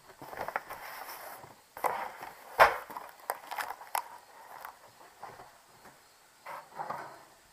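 Cardboard box and cardboard packing being handled: irregular rustling and scraping, with one sharp knock about two and a half seconds in.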